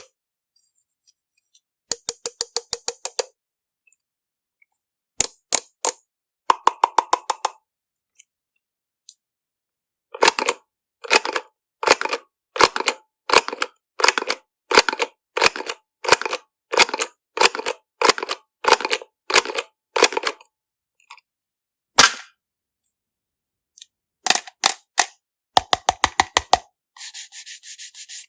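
Rapid sharp clicking in clusters: fast trains of clicks, then about ten seconds of evenly spaced bursts about two a second, a few single loud clicks, and a crackling hiss near the end.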